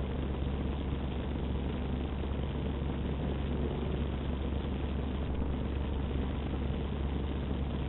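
Utility boom truck's engine running steadily at idle, a low even hum.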